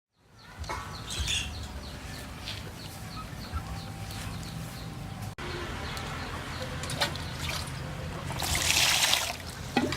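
Small birds chirping in a quick repeated series, then a brief spell of splashing water about eight seconds in.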